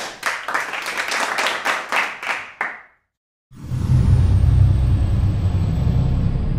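Audience applause for about three seconds. After a short gap a deep rumbling sound effect comes in with a thin high shimmer that slides down, and it slowly fades.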